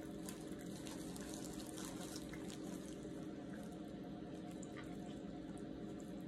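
Whole rotisserie chicken being torn apart by hands in plastic gloves and bitten into: faint, irregular crackles and clicks of skin and meat pulling and glove plastic rustling, over a steady low background hum.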